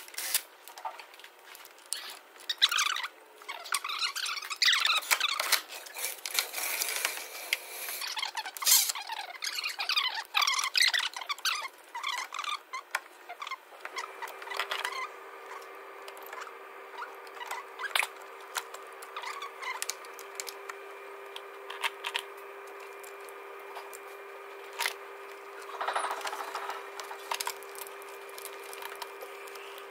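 Sped-up workshop sounds of tools and engine parts being fitted back together: rapid irregular clicks, scrapes and chirpy squeaks. About halfway through, a steady hum starts and runs under sparser clicks.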